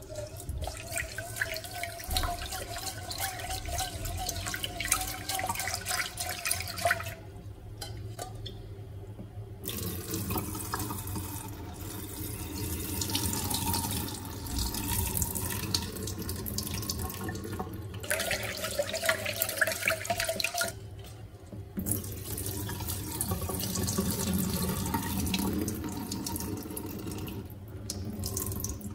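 Kitchen tap water running into a stainless steel pot while brown rice is swished and rinsed by hand, the grains clicking against the metal. The rinse water is poured off into the sink, in several takes with short breaks between them.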